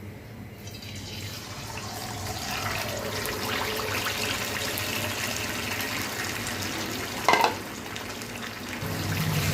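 Hot soybean oil sizzling as a batter-coated whole chicken is lowered into it, the sizzle starting about a second in and growing louder. A single sharp knock, the loudest sound, comes about seven seconds in.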